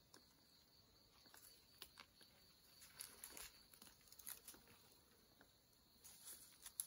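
Faint crackling and rustling of dry leaves, twigs and grass under a person crawling on hands and knees, with scattered soft clicks that are busiest about halfway through.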